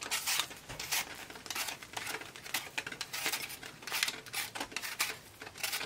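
Hand peeler scraping the skin off an apple in a run of short, uneven rasping strokes.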